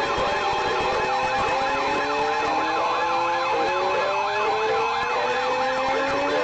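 Siren sound played over an emergency alert broadcast: a fast warbling yelp, with a slower wail beneath it that rises over a second or two and then starts again low, over several steady tones.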